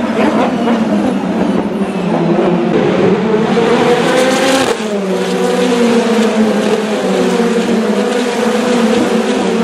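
Several open-wheel single-seater race cars' engines running hard as a pack goes by, their notes overlapping and sliding up and down with the revs. About halfway through the sound changes to a few engines holding steadier notes.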